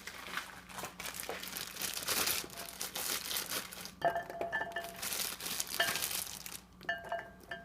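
Plastic packaging crinkling as baby carrots are handled and dropped into a ceramic stoneware Dutch oven, with ringing clinks of the ceramic pot twice: about four seconds in and near the end.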